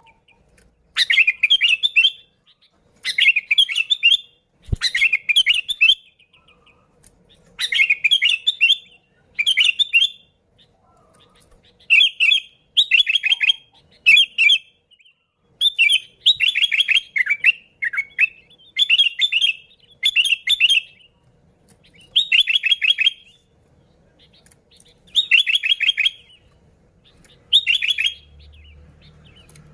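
Sooty-headed bulbul (kutilang) singing loudly and constantly: short bubbling phrases of quick notes, each about a second long, repeated every second or two.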